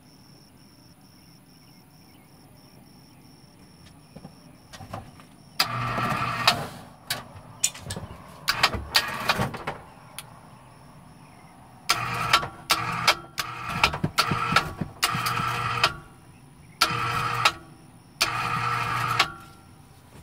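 Harbor Freight electric cable hoist motor starting and stopping in about ten short runs, each up to a second and a half, with a humming whine as it lowers a load on its cable.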